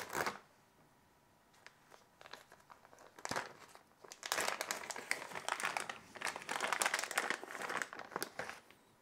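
A clear plastic packaging bag crinkling as it is pulled open and handled. There is a brief crackle at the start and another just after 3 s, then several seconds of continuous crinkling from about 4 s until shortly before the end.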